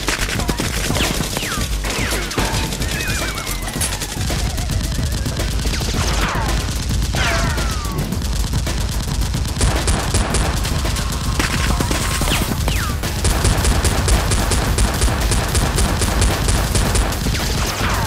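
Rapid automatic gunfire sound effects standing in for Nerf blasters, a dense run of shots with repeated falling whistles scattered through it.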